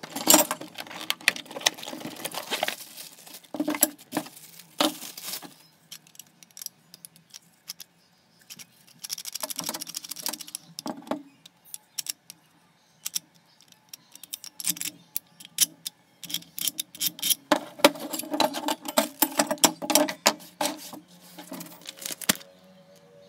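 Drill stand parts being unpacked and handled on a wooden table: many scattered clicks and knocks of metal and plastic pieces picked up and set down, with a spell of rustling wrapping or paper.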